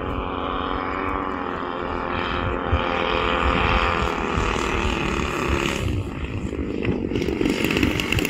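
Twin engines and propellers of a Zeroli P-61 Black Widow RC model plane running on a low approach, their pitch easing down a little as the throttle comes back, then turning rougher and lower near the end as the model flares to land.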